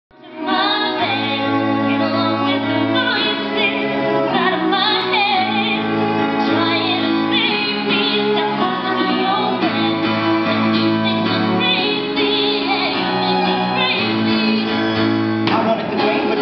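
Live acoustic ensemble of violin, cello and piano playing, starting about half a second in: sustained low cello and piano notes under a wavering melody line.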